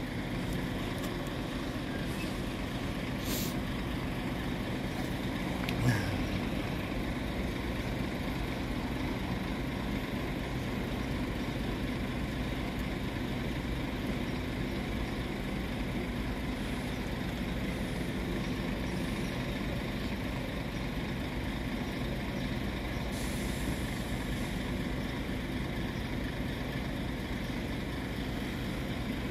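Steady low rumble of idling diesel engines, with a short hiss about three seconds in and a brief louder blip about six seconds in.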